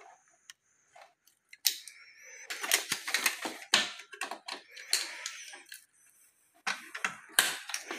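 Crackling, rustling and scattered clicks of packing material being pulled from inside a new HP LaserJet Pro MFP M28w printer: orange packing tape and a foam block worked loose beside the toner cartridge. A few isolated clicks at first, then dense handling noise from about two and a half seconds in, with a short pause near the end.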